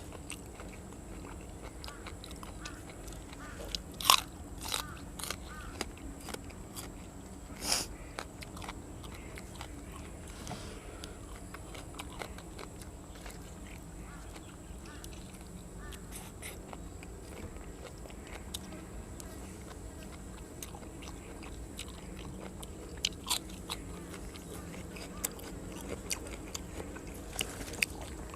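A person eating grilled cuttlefish with raw vegetables close to the microphone: crunching bites and chewing. The sharpest bites come about four seconds in and near eight seconds, with a few more near the end.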